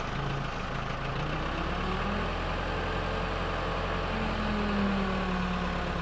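Case backhoe's diesel engine running steadily under hydraulic load as the digging arm is raised. A whining tone drifts in pitch and swells slightly about five seconds in.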